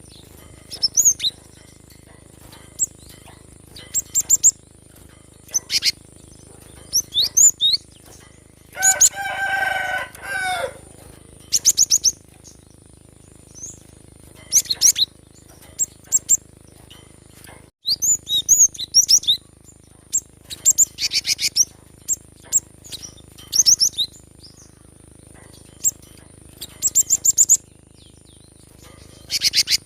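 Cinereous tit (gelatik batu) singing: short groups of high, sharp, rapid chirps and trills, repeated every second or two. A lower, longer call breaks in about nine seconds in.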